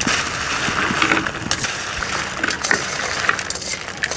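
Hot cooking oil sizzling with a dense crackle of many sharp little pops. It cuts off abruptly near the end.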